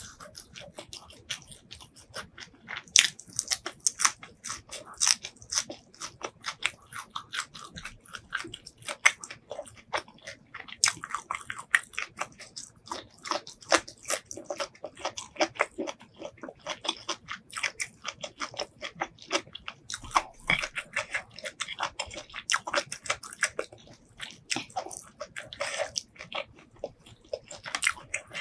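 Close-miked chewing and crunching of food eaten by hand: a dense, irregular run of crisp crackles and clicks.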